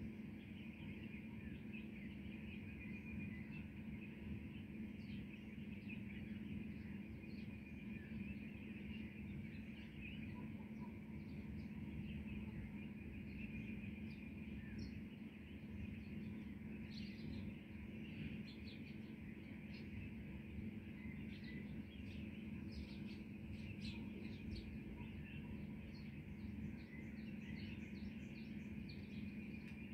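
Small birds chirping in short, high calls, busier in the second half, over a faint steady low hum of background noise.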